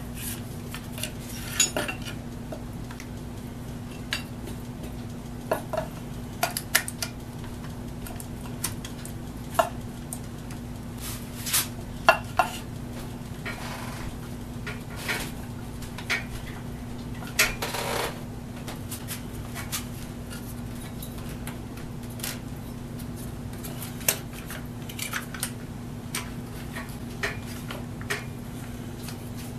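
Irwin Quick-Grip bar clamps being handled and tightened onto a board on a workbench: irregular clicks and clacks from the trigger grips, with knocks of clamp and wood on the bench, over a steady low hum.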